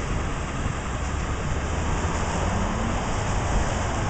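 Steady rain falling on a wet parking lot and parked vehicles, an even hiss with a low rumble underneath.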